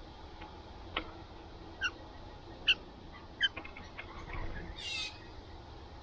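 Blue jay pecking at seed on a wooden table right by the microphone: four sharp taps, the third the loudest, then a brief rustle near the end.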